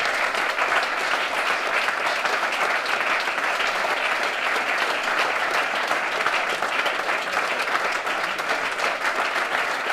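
A roomful of players and staff clapping together, a dense and steady round of applause.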